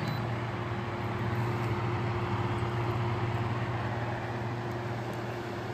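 Air purifier fan running steadily: an even rush of air with a low steady hum. It is running with its filter still sealed in its plastic cover.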